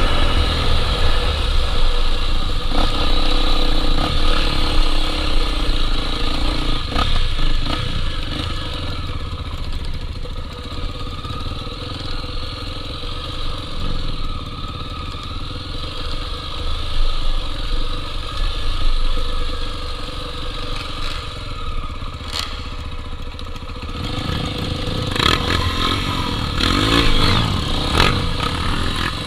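Honda Tornado 250 trail motorcycle's single-cylinder four-stroke engine running under way on a trail, easing off through the middle and picking up again near the end.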